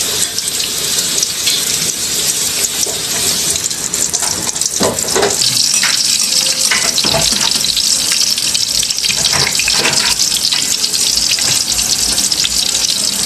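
Food cooking in a pan: a steady sizzling hiss that grows stronger about five seconds in, with a few brief knocks and scrapes of a utensil in the middle.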